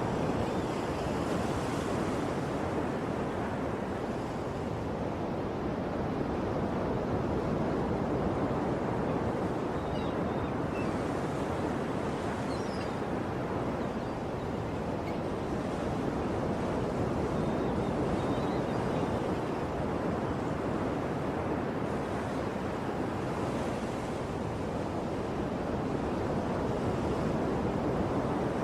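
Ocean surf: a steady wash of breaking waves, swelling and easing slowly.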